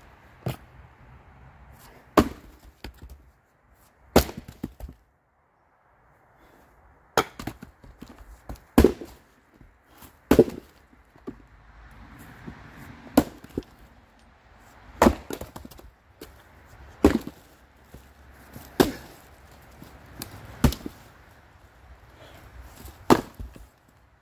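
Splitting maul striking big oak firewood rounds, about a dozen heavy chops every two seconds or so. Some strikes are followed by lighter knocks as split pieces fall onto the pile.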